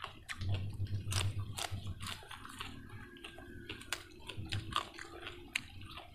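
A person chewing a mouthful of fried rice rolled in egg, with wet mouth noises and many short, sharp clicks and smacks.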